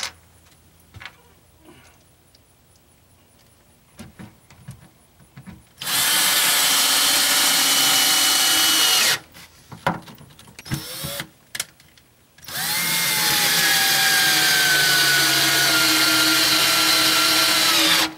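Cordless drill driving screws into a wooden deck board, in two runs: a short one of about three seconds, then after a pause a longer one whose pitch slowly falls. A few light taps and clicks come before and between the runs.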